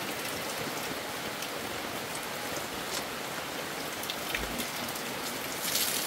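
Steady rain falling, with scattered drops ticking; it swells briefly louder near the end.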